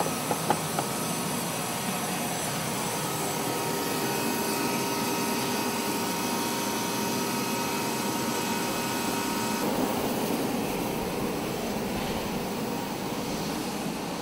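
Steady whining rush of a turbine running on the flight line during aircraft refuelling, with a few sharp clicks in the first second as the fuel nozzle is handled. The whine's tones drop away about ten seconds in, leaving a plainer rush.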